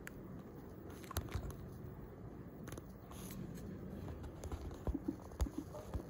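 Handling noise from a smartphone fitted with a clip-on telephoto lens: scattered faint clicks and rustles over a low, steady background rumble, with a run of short low blips near the end.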